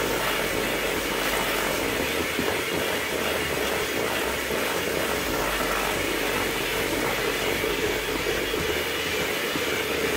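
Hamilton Beach electric hand mixer running steadily on one speed, its beaters whirring through creamed butter and sugar as an egg is beaten in.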